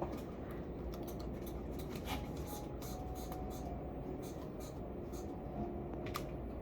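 Light clicks and scrapes of small hard objects being handled, a few scattered ticks over a steady low hum.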